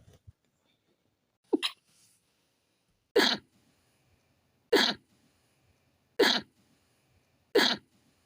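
A fit of sneezes: a short two-part sneeze about a second and a half in, then four sharp sneezes in a row, about a second and a half apart, each brief and cut off quickly, brought on by a tickle in the nose.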